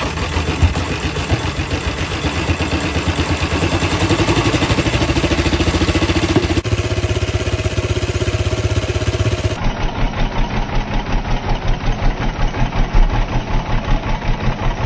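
Single-cylinder engine of a 1934 Harley-Davidson alcohol speedway racer running with a pulsing beat of firing strokes. It revs up a few seconds in, and the sound cuts abruptly between different recordings of the engine twice.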